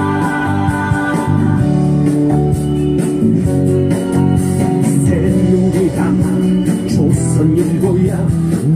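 Protest song playing loudly with guitar accompaniment, in a stretch between its sung '하야' choruses.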